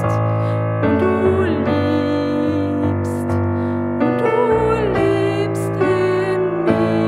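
A worship song on piano or keyboard, with a sung melody over sustained chords.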